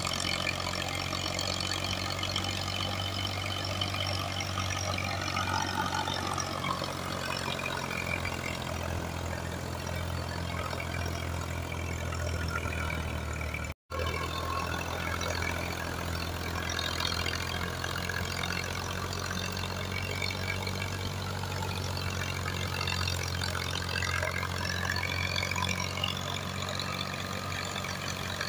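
Al-Ghazi 65 hp diesel tractor running steadily under load, driving a Batala wheat thresher from its belt pulley; the engine's low drone mixes with the whirring of the threshing drum and blower. The sound cuts out for an instant about halfway through.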